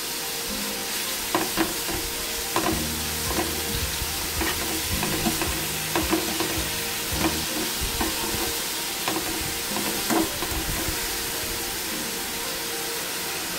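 Sliced onions frying in coconut oil in a metal pan with a steady sizzle, while a spatula stirs them, scraping and knocking against the pan about once a second at irregular intervals.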